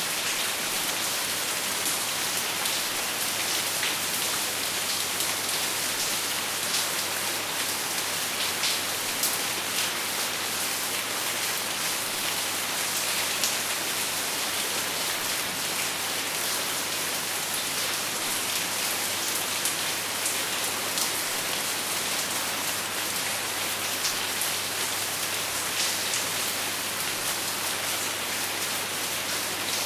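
Heavy rain falling on a roof: a steady hiss with scattered sharper taps.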